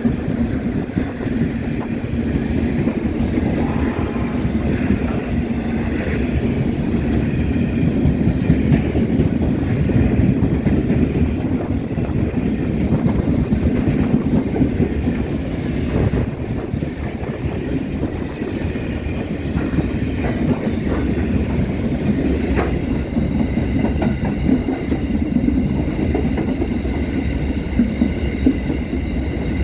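Loaded steel freight train rolling past, wagon wheels clacking steadily over the rail joints. From about two-thirds of the way through, high-pitched wheel squeal rings over the rumble.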